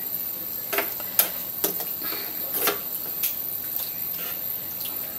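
Plastic spatula stirring chicken in a milky sauce in a nonstick frying pan: irregular clicks and scrapes against the pan over a steady hiss.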